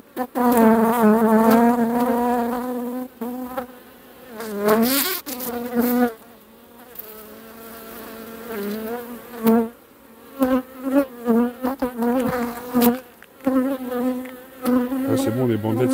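Honeybees buzzing close to the microphone at an open hive: a wavering hum that swells and fades as bees fly past, loud for the first few seconds, quieter in the middle, then coming in short passes, with a few light knocks.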